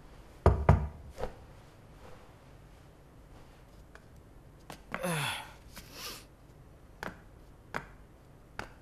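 Knocking on a door: a loud burst of knocks about half a second in and a lighter knock soon after. About five seconds in comes a short breathy voice sound falling in pitch, followed by a few faint ticks.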